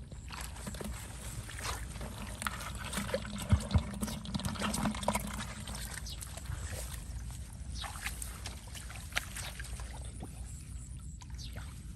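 Water splashing and trickling in a run of small splashes, with two sharp knocks about three and a half seconds in.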